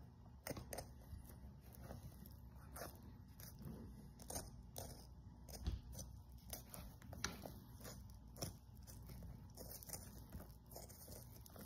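Faint, irregular clicks and wet slicking of a small knife cutting a deer's cape free from the skull around the eye, with the skin and membrane being handled and pulled.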